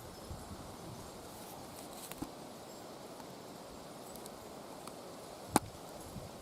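Faint, steady outdoor background hiss, broken by a couple of small clicks about two seconds in and one sharp click about five and a half seconds in.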